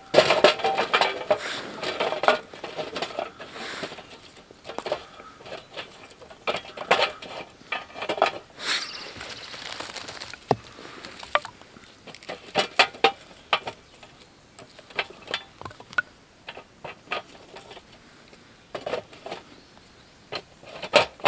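Wooden sticks clattering and knocking against one another as they are sorted from a pile and stood in a small metal wood stove, with clinks against the stove's sheet metal. The knocking is dense for the first few seconds, then comes in scattered clicks.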